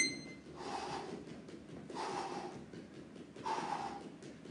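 A man breathing hard while shadowboxing: four heavy breaths about a second and a half apart, the third the loudest.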